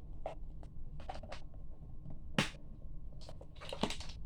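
Plastic clicks and light scraping as a toy bubble camera's bubble-mixture compartment is closed back up by hand, with one sharper click about two and a half seconds in.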